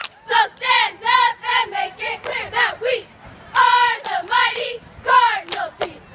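Cheerleading squad shouting a rhythmic cheer in unison in short, clipped syllables, with a few sharp claps among the words.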